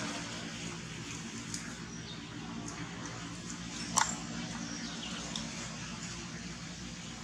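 A few short, high animal squeaks, the loudest about four seconds in, over a steady low hum.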